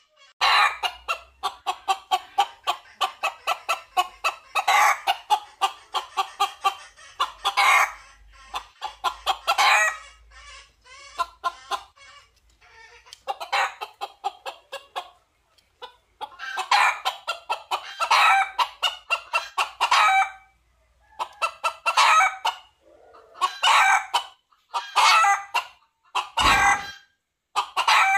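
Red junglefowl cock calling in repeated bouts of rapid clucking and short crows, each bout a second or two long with brief gaps between. This is the cock's calling for hens. A dull thump comes near the end.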